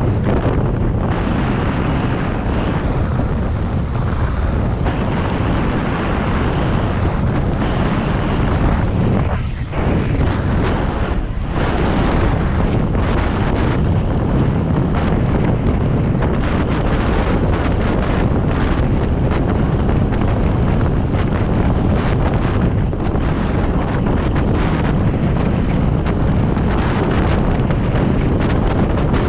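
Loud, steady wind buffeting the microphone of a moving rider, with a brief lull about nine and a half seconds in.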